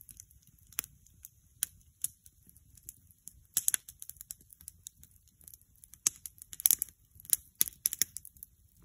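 Campfire crackling: irregular sharp pops and snaps, with a few louder pops about two-thirds of the way through.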